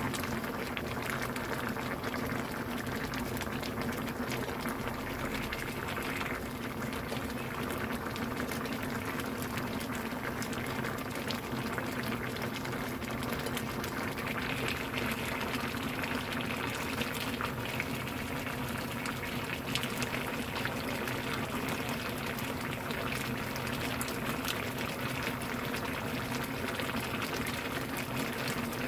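Spicy braised hairtail and radish in red chili sauce bubbling at a steady simmer in a pan, with a continuous popping and crackling of bubbles.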